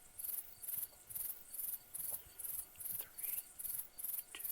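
Insect chirping in a steady, very high-pitched rhythm, about two chirps a second.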